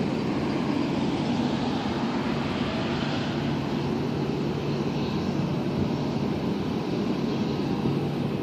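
Steady, even noise of a Boeing 737's jet engines at taxi power, heard from a distance.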